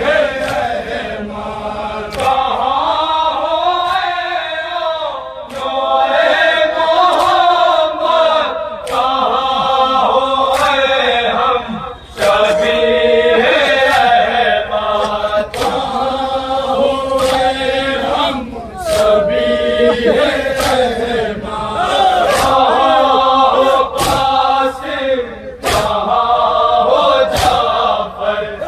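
Men's voices chanting a nauha, a Muharram lament, together in a melodic chant, with sharp beats sounding roughly once a second in time with it.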